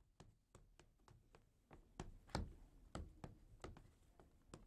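Faint footsteps of several people walking on a wooden floor: a quick, uneven run of light knocks.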